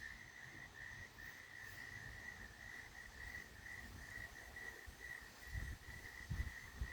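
Insect chorus: a steady, evenly pulsing chirp at one high pitch, about two to three pulses a second. Low rumbles of wind buffeting the microphone join in more strongly from about five and a half seconds in.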